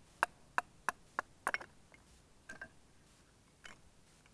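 A Magnusson Swedish army knife splitting a small stick of kindling: six quick, sharp wooden knocks in the first second and a half as the knife and stick are driven down onto the log, then two fainter knocks.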